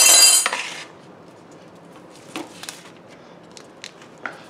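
A kitchen knife cuts through a soft goat cheese log on a plastic cutting board, giving a loud squeak about a second long at the start. A few soft clicks and taps follow as the cheese is handled and broken up.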